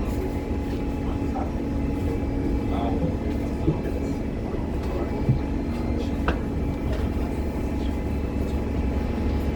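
Cabin noise aboard a 2015 Gillig Low Floor 40-foot CNG transit bus: a steady low rumble and hum from its Cummins Westport ISL G natural-gas engine and drivetrain. A few short rattles or knocks come through about a third and two thirds of the way in.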